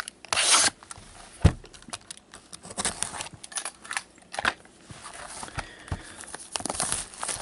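Box cutter slitting the shrink wrap on a sealed trading-card box: a short scraping cut about half a second in, then scattered clicks and taps as the box is handled, and plastic wrap crinkling more steadily near the end.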